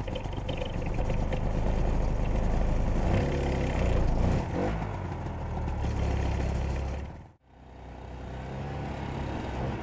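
Ski-Doo Elan snowmobile's two-stroke engine running and revving while towing a sled. About seven seconds in, the sound cuts out for a moment, then the engine is heard again a little quieter.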